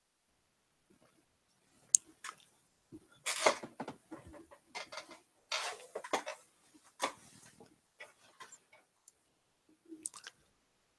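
Someone drinking water close to the microphone: a sharp click about two seconds in, then a string of irregular handling noises and swallowing sounds.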